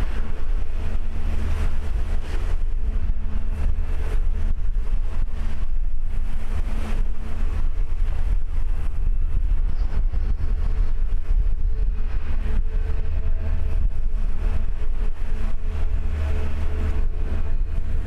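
Backhoe dredger's machinery running with a steady low rumble and a faint continuous hum as it works its bucket.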